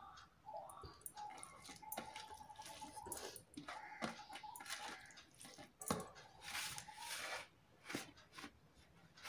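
Fingers mixing cooked rice with hilsa fish curry on a steel plate: soft wet squishing and crackling of the rice, with small clicks and taps of fingers against the plate and eating sounds of the mouth.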